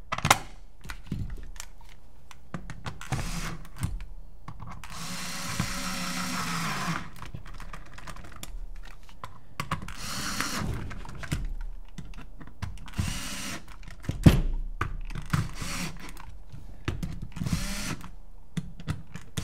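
Screws being driven back into a paintball pistol's shell with a small power screwdriver. There are two short whirring runs, about five and ten seconds in, among clicks and taps of tools and small parts.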